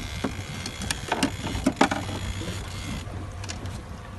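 Fishing reel whirring with a steady high buzz as a hooked fish pulls against the bent rod, stopping about three seconds in, with a few sharp knocks between one and two seconds in. A boat engine hums low underneath.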